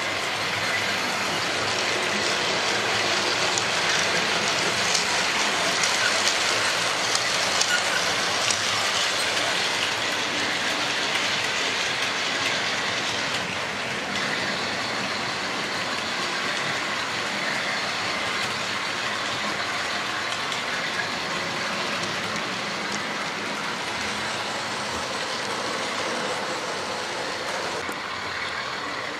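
Model railway trains running on the layout: the steady rattle of small wheels over the rails and rail joints, mixed with the whirr of the locomotives' electric motors.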